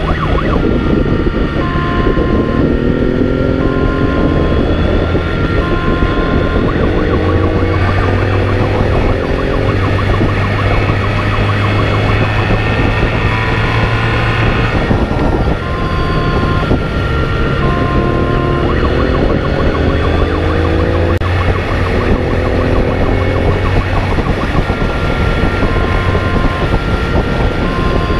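Police motorcycle engine accelerating hard at speed, its pitch climbing again and again through the gears, over dense wind and road noise. A siren sounds in short repeated tones.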